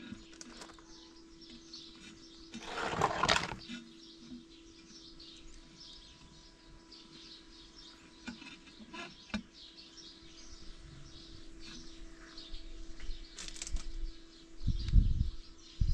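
Small birds chirping and twittering throughout over a faint steady hum. A loud rustling burst lasts about a second, about three seconds in, and a few sharp knocks and low thumps come near the end.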